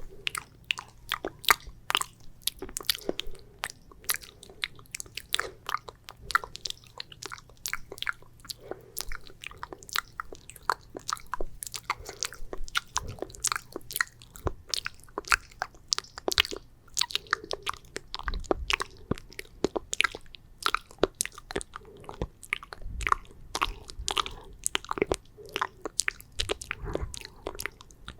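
Wet, sticky mouth sounds of ASMR spit painting: saliva clicks and smacks coming in a dense, irregular stream.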